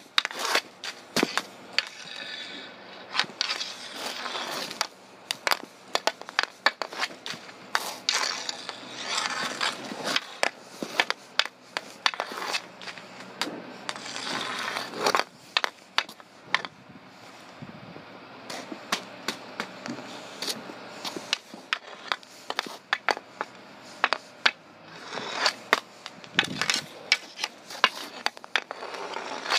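Hockey stick blade striking a plastic street hockey ball on asphalt: many sharp clacks at uneven intervals, with stretches of the blade scraping along the pavement.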